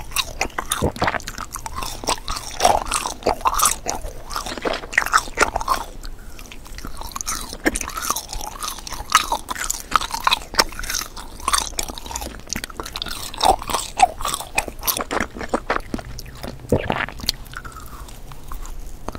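Close chewing of sugar-coated gummy candy: irregular wet, sticky mouth clicks and smacks. Near the end comes a bite into a fresh piece.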